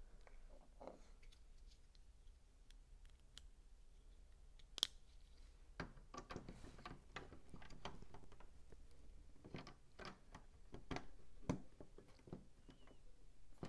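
Plastic LEGO pieces handled and pressed into a model: scattered light clicks, with a sharp click about five seconds in and runs of quick clicking after it.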